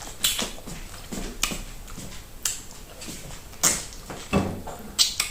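Close-miked eating sounds: about half a dozen separate sharp cracks and clicks of teeth biting and gnawing on a hard chicken bone, which does not break.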